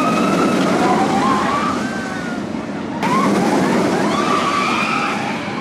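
Outdoor crowd noise: many voices, with drawn-out shouts and screams, over the running of a steel roller coaster train on its track. The sound changes abruptly about three seconds in.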